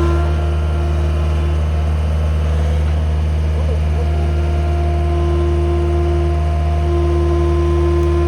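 Engine of a working machine running steadily at idle, a constant low hum with a fainter steady whine above it.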